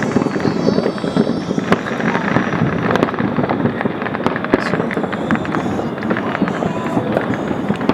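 Fireworks and firecrackers going off continuously: a dense, unbroken crackle of many sharp pops and bangs close together.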